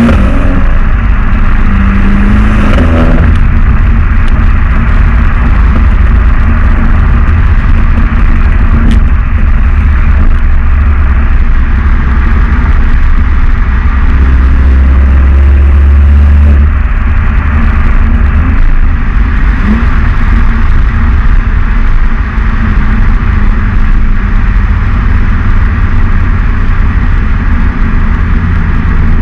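Volkswagen Golf 7 R's turbocharged 2.0-litre four-cylinder engine and exhaust running under way with a loud, steady low drone. The engine note shifts in the first few seconds, then holds.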